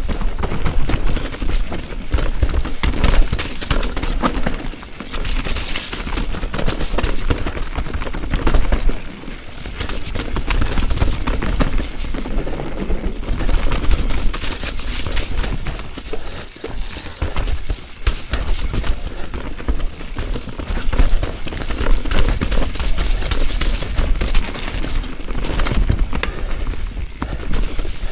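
Transition Relay mountain e-bike descending a rough forest trail: tyres on dirt and roots, with steady rattling and clattering from the bike over bumps, under a low rumble.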